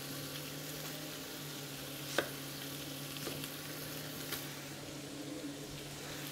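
Venison trimmings sizzling in a hot stainless stockpot, a steady frying hiss over a low hum. A few sharp knocks of a chef's knife on a wooden chopping board as an onion is quartered cut through it; the loudest comes about two seconds in.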